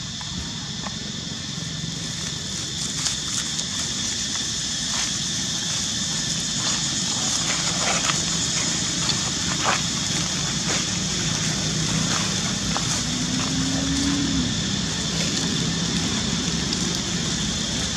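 Steady outdoor background hum with scattered crackles and rustles of dry leaves as macaques move about on the leaf litter.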